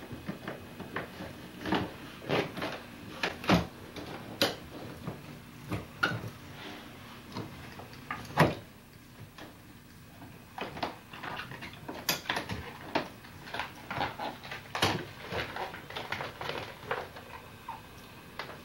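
Irregular clicks, knocks and rustles of bicycle parts and wrapped bundles being shifted and pressed into a hard plastic suitcase, with a few sharper knocks standing out.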